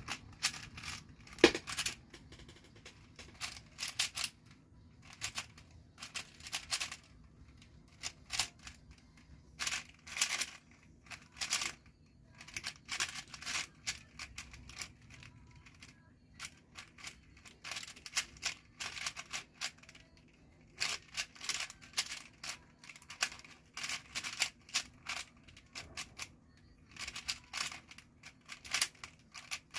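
4x4 speedcube being turned fast in a timed solve: quick runs of plastic clicking and clacking from the layers, broken by short pauses.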